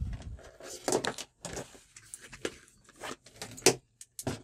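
Handling noise from a digital multimeter and its test leads: several short knocks and rustles, the sharpest about three-quarters of the way in.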